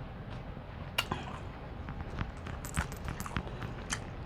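Close-miked mouth sounds of eating seafood: soft, wet chewing with scattered sharp clicks and smacks, one about a second in and several close together near three seconds.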